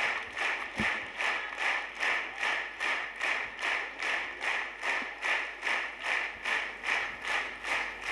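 Audience clapping in unison, a steady rhythm of about two claps a second.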